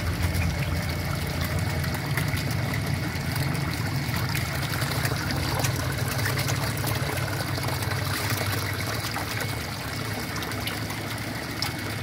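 Water trickling and splashing steadily into a recirculating eel tank, with a low hum beneath it that eases a little near the end.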